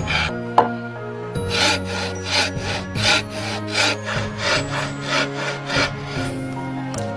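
Hand tool working wood in regular back-and-forth strokes, about two a second, with one sharp click about half a second in.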